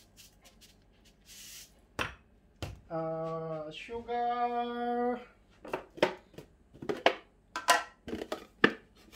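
Salt shaken briefly from a shaker over a bowl, a couple of sharp knocks, then a woman's voice holding two long notes. After that comes a run of light clicks and rustles as a bag of sugar is handled over the bowl.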